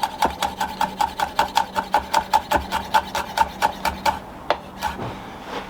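Quick, even clicking strokes from a kitchen utensil as bird's eye chili goes onto the pizza, about six a second for about four seconds, then two or three separate knocks.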